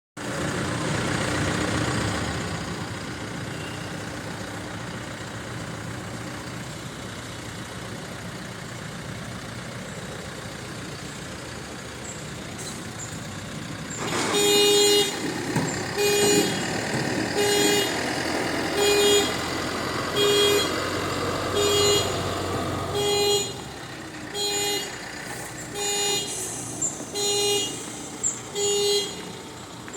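A vehicle engine running steadily, then about halfway through a reversing alarm starts beeping over it, one beep roughly every second and a half, eleven in all.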